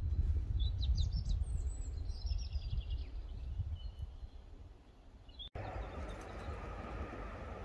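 Small birds chirping, with one quick trill, over a low rumble; the chirps die away about four seconds in. After an abrupt cut about five and a half seconds in, a steady outdoor hiss.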